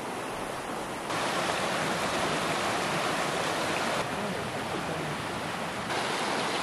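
Small mountain stream rushing over rocks: a steady water noise, louder from about a second in.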